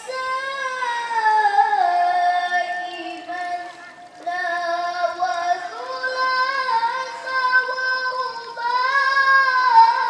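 A young girl chanting a Quran recitation in melodic tilawah style into a microphone, holding long ornamented notes, with a short pause for breath about four seconds in.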